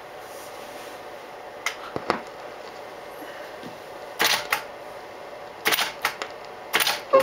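Sharp clicks over a steady hiss with a faint hum: a few lighter clicks about two seconds in, then three louder clusters of two or three clicks each, roughly a second and a half apart.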